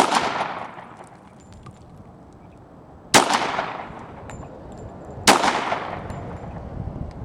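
Three handgun shots: one right at the start, one about three seconds later and one two seconds after that. Each has a sharp crack and a long echoing tail.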